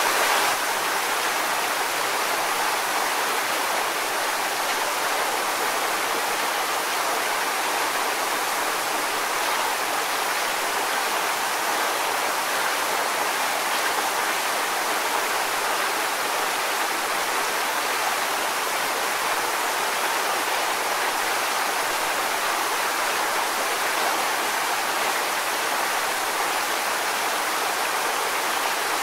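Waterfall: falling water making a steady, even rushing noise, dipping slightly in level about half a second in.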